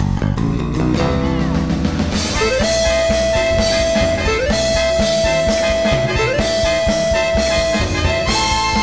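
Live band music: drums and bass, then a lead instrument holds a long high note three times, sliding up into each one, and climbs higher near the end.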